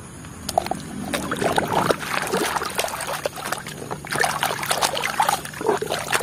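Muddy water sloshing and splashing in a plastic tub as a plastic toy is swished about in it by hand, in a run of irregular splashes.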